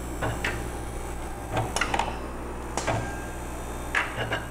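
TomTec Quadra 4 SPE liquid handler's pipetting head shucking (ejecting) a full rack of disposable pipette tips into the tip rack below: a series of sharp clacks and rattles, which the technician believes are driven by air pressure. A steady low hum from the unit runs underneath.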